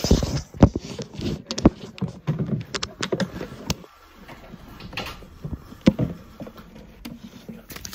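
Handling noise from a phone held close to the microphone: rustling with irregular clicks and knocks as it is turned and moved about.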